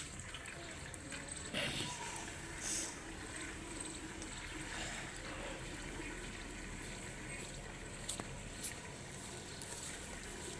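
Water trickling steadily while a pigeon bathes in it, with a few short splashes about two seconds in and again around eight seconds in.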